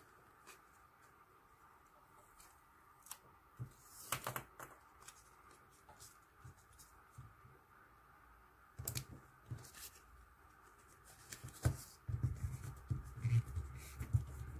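Quiet handling of a paper barcode sticker: faint scattered rustles and crinkles as it is peeled from its backing and laid onto a paper label, then from about twelve seconds in a low, steady rubbing as fingers press it flat against the tabletop.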